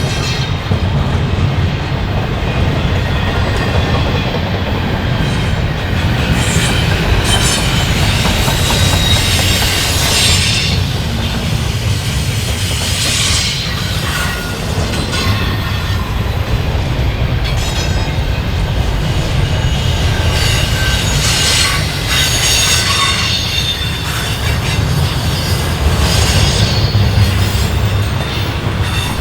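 Freight train rolling past: a steady low rumble of steel wheels on the rail, with the wheels squealing high-pitched every few seconds.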